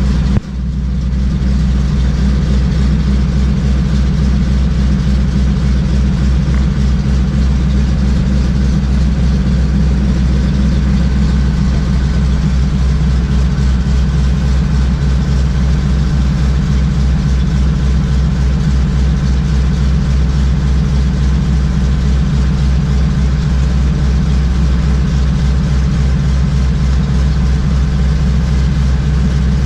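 Single-engine floatplane's propeller engine running steadily while it taxis on the water, heard from inside the cockpit. There is a short click and brief dip in level about half a second in.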